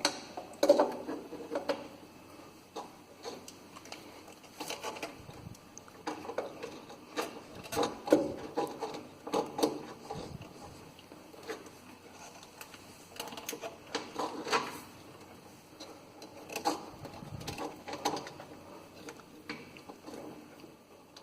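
Irregular handling noise of wires and small parts being worked by hand: scattered clicks, light knocks and rustles as the switch wiring is fished through its mounting opening.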